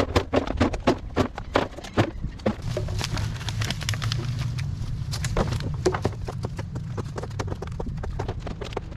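Irregular clatter of plastic bottles and litter being picked up and dropped into a plastic barrel, mixed with footsteps crackling over dry sticks and leaves. The knocks come thick and fast for the first couple of seconds, then more sparsely.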